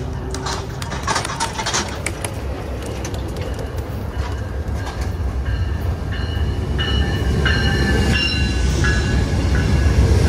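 Amtrak diesel-hauled passenger train approaching and pulling past: the engine runs low and steady, with scattered clicks from the rails. From about halfway in, high squealing from the wheels joins it, and the whole sound grows louder as the locomotive comes alongside.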